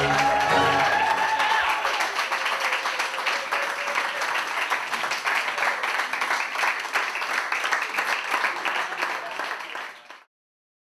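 Audience applauding at the end of an opera performance, with the last held sung note ending about a second and a half in. The applause fades out shortly before the end.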